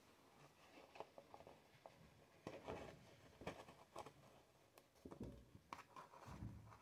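Faint soft rustles and scattered light ticks of a darning needle and mohair-silk yarn being drawn through thick art paper, with the paper sheet handled.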